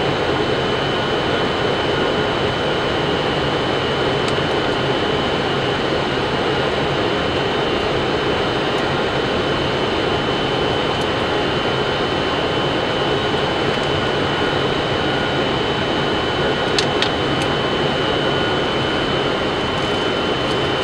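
Steady flight-deck noise of a Boeing 747-400ERF on final approach: an even rush of airflow and air conditioning over the engines, with a thin steady high whine. A couple of short clicks come about three-quarters of the way through.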